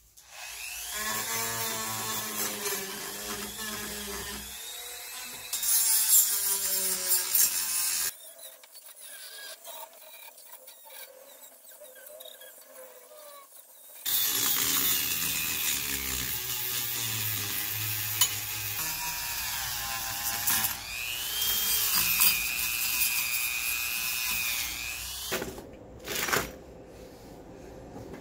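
A handheld rotary tool with a grinding bit whines at high speed as it grinds rust off a motorcycle's rotted rear frame rail, its pitch dipping and recovering as the bit bites into the metal. It runs in two long stretches with a much quieter gap in the middle.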